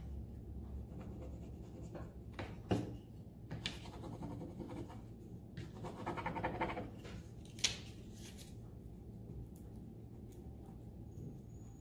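A small applicator stick rubbing a rub-on transfer down onto a painted MDF frame: intermittent scratchy rubbing strokes, with a couple of sharp clicks and a longer spell of rubbing about six seconds in.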